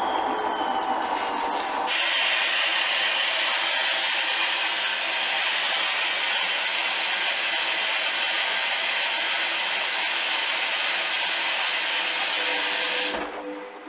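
Washing machine running: a loud, steady rushing noise starts abruptly about two seconds in and cuts off shortly before the end.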